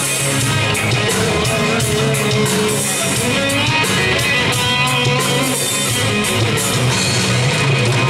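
Live rock band playing an instrumental passage between sung lines: electric guitar melody over bass guitar and a drum kit keeping a steady cymbal beat.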